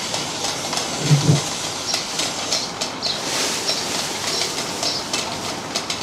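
Plastic-wrapped packets of naswar crinkling and rustling, with many small clicks, as they are handled and tipped out of a metal bowl onto a pile.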